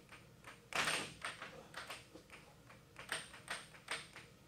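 Plastic air hockey puck and mallets clacking on a professional air table: a steady run of sharp clicks, about three a second, as the puck is struck and knocks against the mallet and the rails, loudest about a second in.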